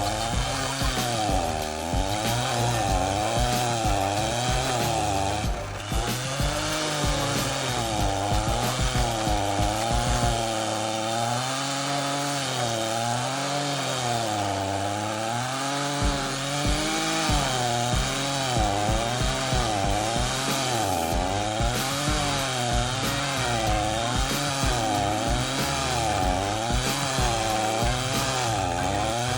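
Stihl two-stroke chainsaw driving a Terminator stump-grinding attachment, running at high revs as it grinds into a tree stump, its pitch swinging up and down every second or two as the cutter bites into the wood and eases off.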